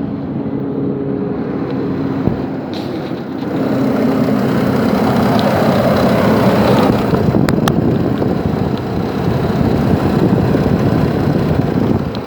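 2006 Nissan Frontier's engine cooling fan running flat out on the idling engine, a loud rush of air like a hovercraft that grows louder about three and a half seconds in. The fan stays on max with the engine cold at −2 °C, which the owner has read could be a failing fan clutch.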